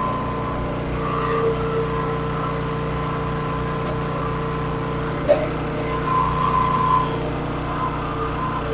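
Old gasoline generator engine running steadily. A single sharp click comes about five seconds in.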